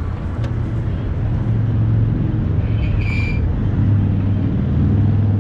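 Steady low hum and rumble of city background noise, with a short high-pitched squeak or beep about three seconds in.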